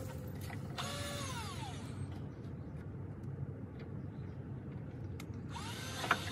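Power drill run in two short bursts, about a second in and again near the end, its whine sliding up and down in pitch with the trigger, over a steady low rumble.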